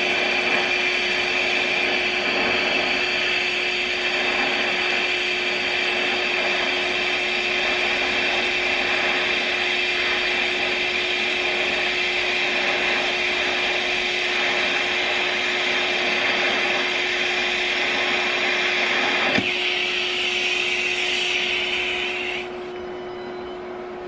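DC TIG welding arc burning steadily as a bead is run along a metal joint, a constant buzzing hiss over a steady hum. About 19 seconds in the arc cuts off with a click, a brighter hiss follows for about three seconds, then only a quieter steady hum remains.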